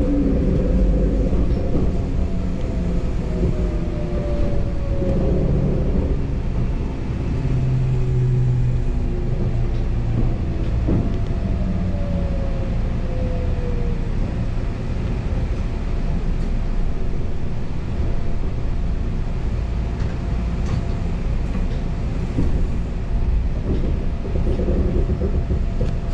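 Electric commuter train's running noise heard from inside the driver's cab as it slows into the terminal platform: a steady wheel-and-rail rumble with a motor whine that falls in pitch twice as it brakes, and a few brief knocks.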